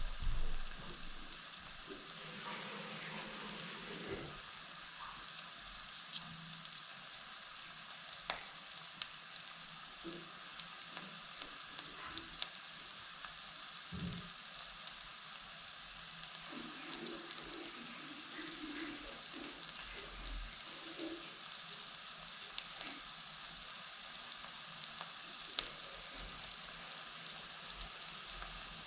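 Food frying in a pan: a steady sizzle with scattered crackles and pops, and a couple of brief knocks.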